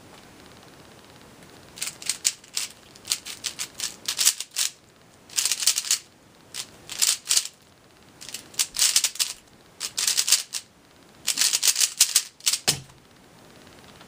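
Zhanchi Silk 3x3 speedcube being turned fast through a speedsolve: rapid bursts of plastic clicking and clacking, broken by short pauses. A single dull thump comes near the end, as the solve finishes.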